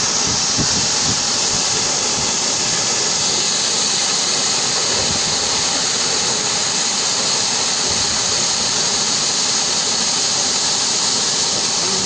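High-pressure water jetting out of a broken gate valve on a large water pipeline: a loud, steady hissing rush of spray.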